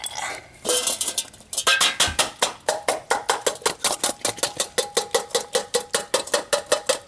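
A dog lapping from a metal bowl: fast, even clinks, about four or five a second, starting about a second and a half in, with the bowl ringing faintly.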